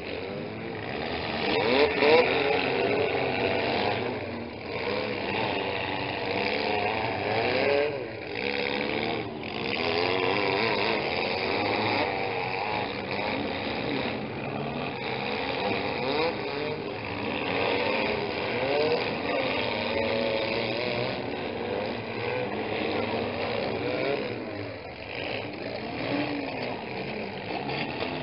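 Several small-car engines of demolition derby mini cars revving up and down at once as the cars manoeuvre and hit one another, loudest about two seconds in.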